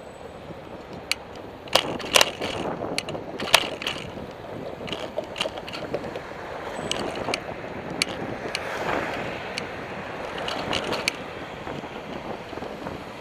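A bicycle riding on a city road, rattling with sharp clacks over bumps in the surface, the loudest about two and three and a half seconds in. Wind noise on the microphone and passing car traffic lie under it.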